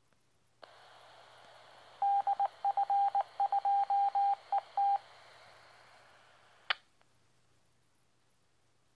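An Icom handheld communications receiver tuned to 439.600 MHz picks up the repaired Tait TB7100's transmission on its small speaker. The squelch opens on a faint hiss, then a single beep tone is keyed in short and long elements for about three seconds as a Morse-code identifier. A sharp squelch-tail crackle cuts it off as the carrier drops.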